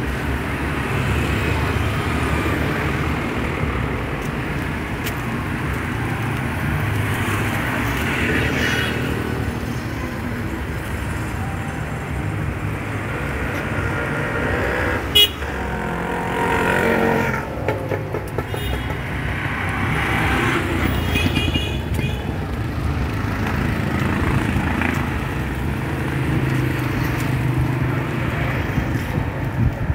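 Street traffic: vehicle engines running by in a steady rumble, with horn toots around the middle and one sharp knock about halfway through.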